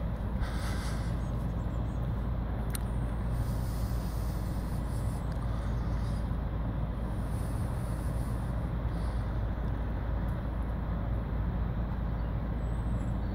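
Articulated lorry's diesel engine running steadily with a low rumble as the lorry manoeuvres slowly.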